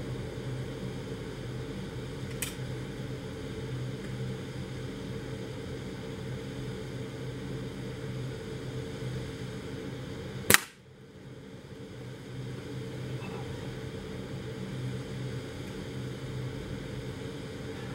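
A single air rifle shot: one sharp crack about ten and a half seconds in, over a steady low hum, with a much fainter click about two and a half seconds in.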